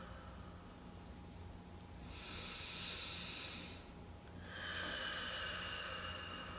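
A person breathing deeply during a guided breathing exercise: a hissing breath drawn in about two seconds in, then a longer breath let out from about four and a half seconds.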